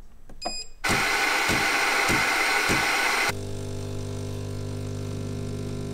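Automatic bean-to-cup coffee machine making a coffee: a short beep, then the grinder grinding beans loudly for about two and a half seconds. The grinder cuts off abruptly and the brewing pump takes over with a steady hum as coffee runs into the cup.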